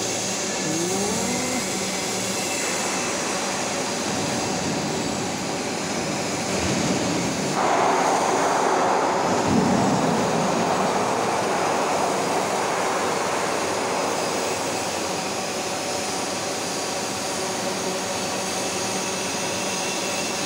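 Steady industrial machinery noise in a pipe-fabrication shop. A short rising whine sounds about a second in, and a louder hiss sets in near the middle for several seconds before falling back.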